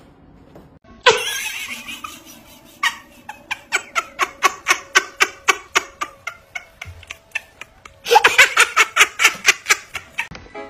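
A person laughing in rapid repeated bursts, about four to five a second. One bout breaks out suddenly about a second in and tails off; a second, loud bout starts about eight seconds in.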